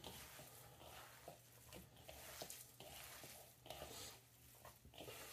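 Faint squishing and rustling of hands kneading a sausage-and-cheese mixture in a bowl, with small irregular clicks and knocks against the bowl.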